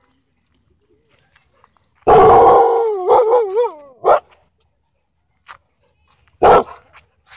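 Husky vocalizing: a loud, wavering 'woo' howl-talk about two seconds long, starting about two seconds in, then a single short bark near the end.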